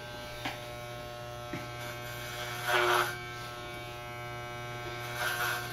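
Electric hair clippers running with a steady buzz as they are pushed through a man's hair. The buzz gets briefly louder once, about three seconds in.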